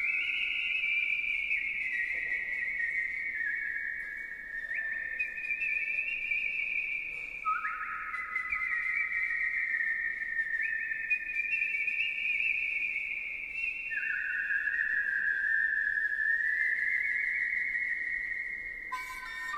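Artistic human whistling of a slow melody: long held, pure notes linked by sliding changes in pitch. Accompanying music comes in just at the end.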